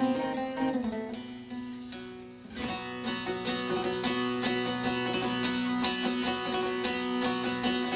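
Instrumental interlude of a sung Turkish folk song (türkü), played on plucked strings over held low notes. The playing fades about two seconds in, then a new strummed passage starts.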